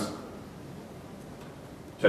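Faint, steady room noise in a short pause in a man's speech, his voice dying away at the very start.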